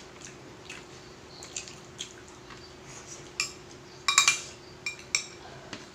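Cutlery clinking and scraping against plates during a meal: scattered light clicks, with a louder cluster of ringing clinks about four seconds in and another just after five seconds. A faint steady hum runs underneath.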